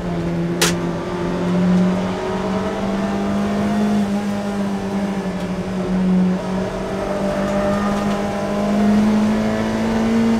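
Mazda MX-5 Miata's four-cylinder engine running hard at high revs under racing, its pitch creeping up with small dips. A single sharp click about half a second in.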